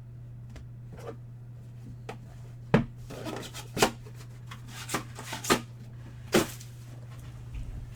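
Trading cards being handled on a table: about five sharp taps and short rustles of card and sleeve, over a steady low hum.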